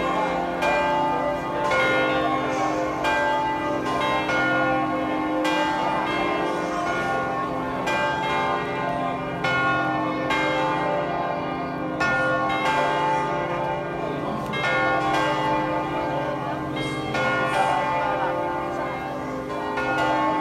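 Church bells in a tall bell tower ringing: bells of several pitches struck one after another, about one strike a second, each ringing on and overlapping the next.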